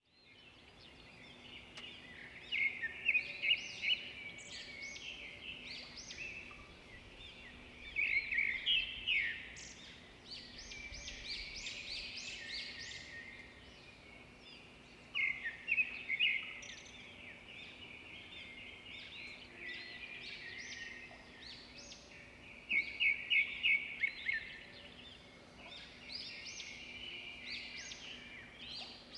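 Small birds chirping and twittering, with bursts of rapid trilled notes every few seconds over a faint steady hum.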